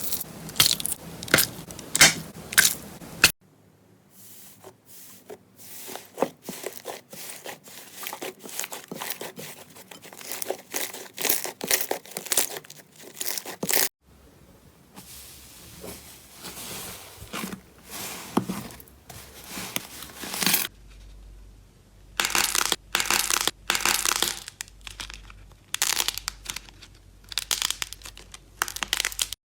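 Slime being squeezed, stretched and pressed by hand, making close crackling, popping and clicking sounds, in several short segments that change abruptly.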